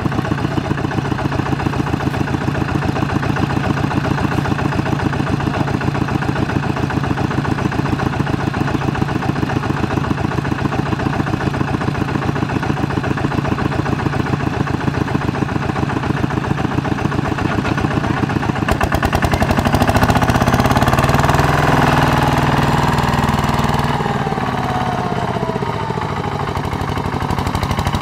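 Single-cylinder diesel engine of a two-wheel walking tractor (power tiller) running with a rapid, even firing beat. About two-thirds of the way through it gets louder and revs, its pitch rising and falling, as it works under load in the mud.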